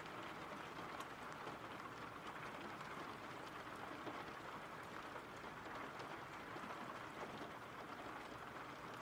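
Steady, faint rain falling, an even patter with an occasional single drop ticking a little louder.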